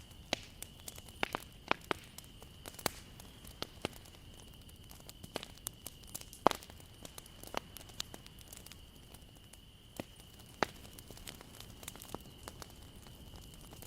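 Wood fire burning, with irregular sharp crackles and pops over a low steady hiss; one pop stands out louder about six and a half seconds in. A faint steady high tone runs underneath.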